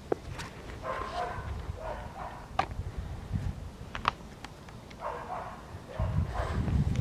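Eight-week-old Siberian husky puppy giving several short, high cries spread through the stretch, with a few sharp clicks. Near the end a louder low rustling comes in.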